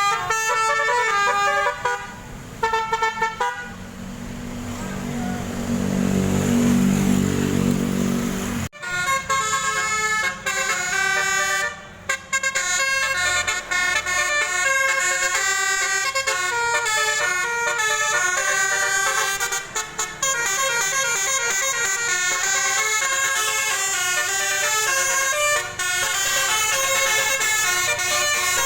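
Bus 'telolet' musical horns playing quick, stepping multi-note tunes over and over. A few seconds in, the tunes give way to a louder rushing noise with a low drone, which cuts off suddenly before the horn tunes start again.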